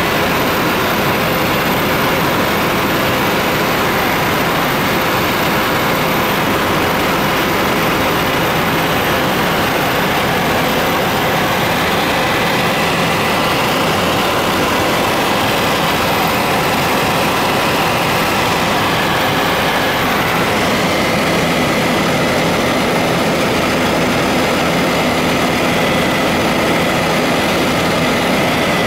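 Steady loud drone of a helicopter's engine and rotors heard from inside the cabin, unbroken throughout, with a faint steady high tone above it.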